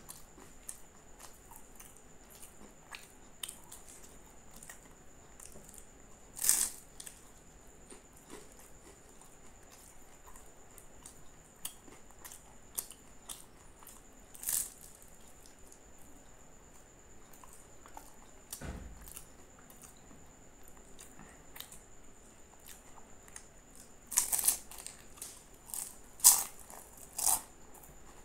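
Close-miked chewing of a crispy aloo patty, with soft wet mouth sounds and small crackles throughout. Loud crunchy bites come about six seconds in, again at about fourteen seconds, and in a burst of several crunches and clicks near the end. There is one dull low thump about two-thirds of the way through, and a faint steady high-pitched tone sits under everything.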